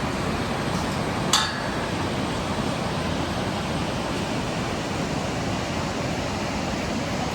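Steady rushing noise with a single short, sharp clink about a second in.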